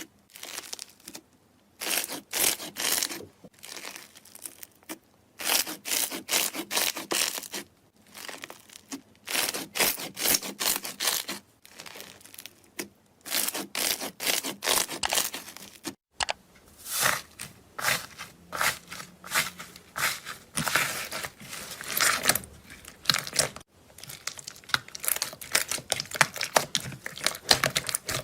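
Slime being worked by hand, giving quick crackling, popping clicks in bursts of a second or two with short pauses between.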